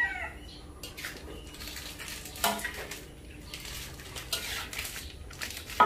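Metal spatula clinking and scraping against a wok as vegetables are stir-fried: a handful of separate knocks, the loudest near the end.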